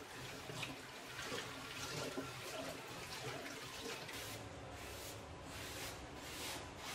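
Steel-wool scouring pad scrubbing a wet stainless-steel sink drainboard in back-and-forth strokes, settling into about two strokes a second in the second half, with light water sounds.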